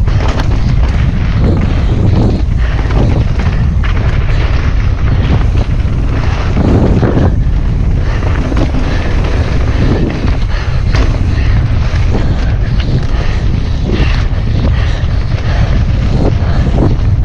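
Wind buffeting the microphone of a bike-mounted or rider-worn action camera while a mountain bike is ridden along a dirt singletrack, a steady low rumble. The bike's tyres and frame rattle and knock over the bumps of the trail throughout.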